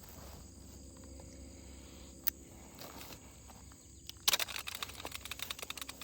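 Electric fence wire being handled and worked by hand: a single click, then a quick run of rattling clicks and rustle for the last couple of seconds. Insects chirp faintly and steadily in the background.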